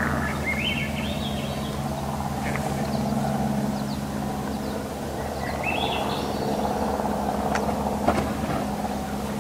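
A steady low engine-like hum runs throughout. A small songbird sings two short rising phrases over it, about a second in and again about six seconds in. A few sharp clicks come near the end.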